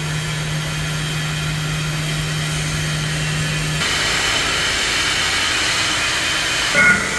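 Steady machinery noise on a steel-structure lift: a low, even hum stops about four seconds in and a louder hiss-like noise takes over, with a brief higher squeal near the end.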